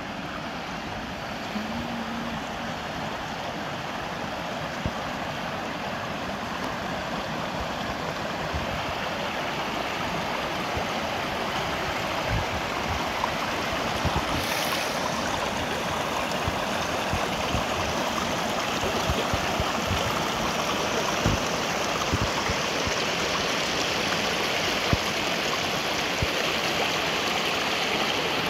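Shallow mountain stream running over rocks, a steady rush of water that grows slowly louder.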